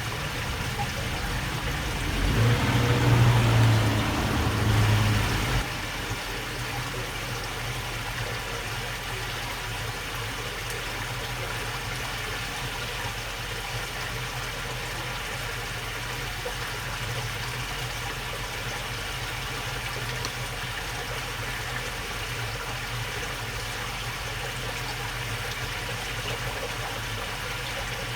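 Water flowing steadily along a channel, with a low hum underneath. About two seconds in, a louder low rumble rises for a few seconds, then cuts off suddenly.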